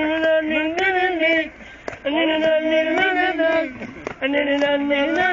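A man singing in long, drawn-out held notes, with two short breaks between phrases.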